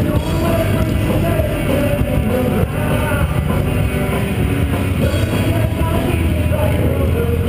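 Rock music with singing, loud and steady.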